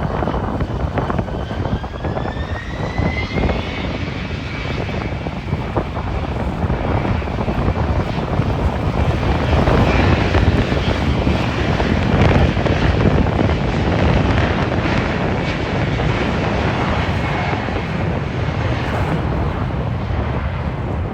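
Airliner engines running at high power. Their whine rises over the first few seconds and then holds steady, and the engine noise grows loudest about halfway through.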